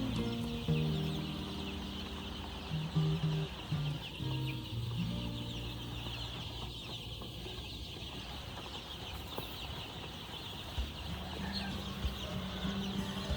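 Chickens clucking over soft background music with held low notes.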